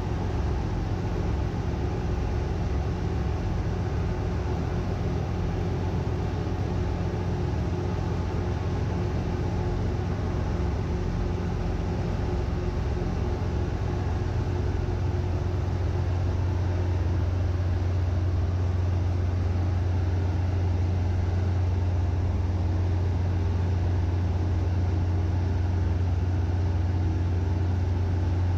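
Steady low drone of ship engine-room machinery, a deep hum with a few fainter steady tones above it, heard from inside the main engine's crankcase. It grows slightly louder a little past halfway.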